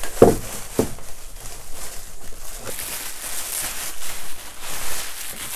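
Plastic packaging crinkling and rustling as polyurethane sealant tubes are unwrapped and handled, with two short murmurs in the first second.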